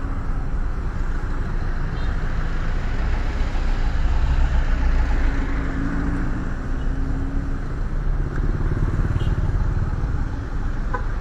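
Road traffic passing close by: cars, motorcycles and a truck driving past, a steady hum of engines and tyres.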